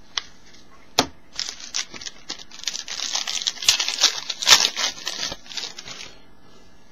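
Foil trading-card pack wrapper being torn open and crumpled in the hands. A couple of sharp clicks come in the first second, then a dense run of crinkling for about four and a half seconds, which stops near the end.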